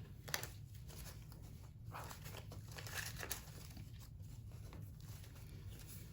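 Faint rustling and crinkling of paper cash and envelopes being handled, with a few soft taps.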